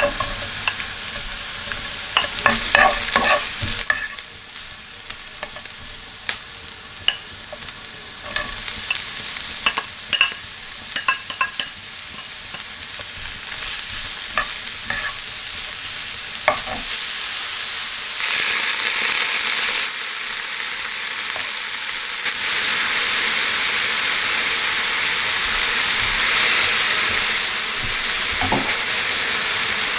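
Sliced onion and julienned carrots frying in oil in a nonstick pan, stirred with a wooden spatula that clicks and taps against the pan. The taps come mostly in the first dozen seconds; after that the sizzle grows louder and steadier, with a louder burst about two-thirds of the way through.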